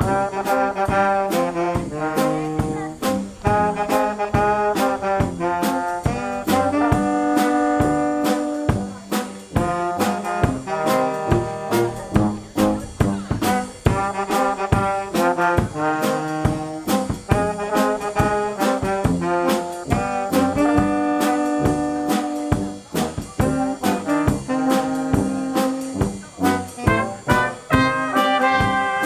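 Brass band music: trombones and trumpets playing a tune over a steady beat.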